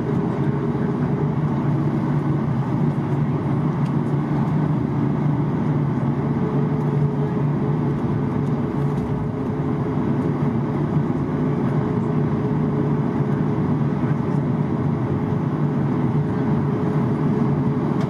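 Boeing 737 MAX cabin noise while taxiing: the CFM LEAP-1B engines at low taxi thrust give a steady low hum and rumble, with no spool-up.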